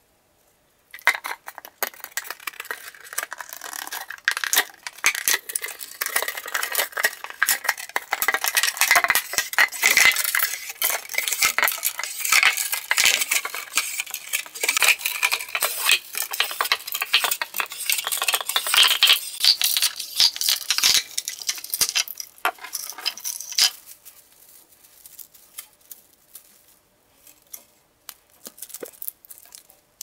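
Small blade of a Victorinox Swiss Army knife cutting and scraping into a wine cork: a dense, scratchy crackle of many small clicks. About three-quarters of the way through it thins to scattered clicks and light crinkling of thin plastic.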